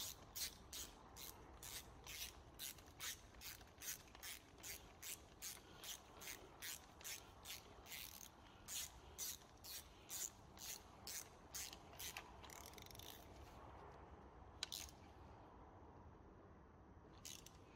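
Ratchet wrench with a T47 Torx bit clicking as it runs down the bolt holding a diesel injector: faint, even clicks of the pawl, about two to three a second, that stop about thirteen seconds in, followed later by two single clicks.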